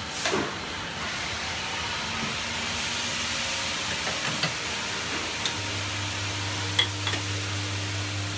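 Steady machine hiss with a few light clicks, and a low hum that joins about two-thirds of the way through.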